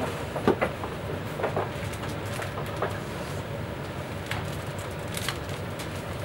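Scattered rustles and light knocks of handling: a hand stirring the entries in a prize-draw box, then a boxed toy being passed over and held. A steady low room hum underneath.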